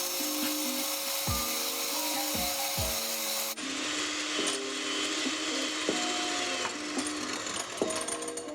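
Electric hand mixer whirring, as when beating egg whites for the batter, with background music. The mixer noise drops off sharply about halfway through.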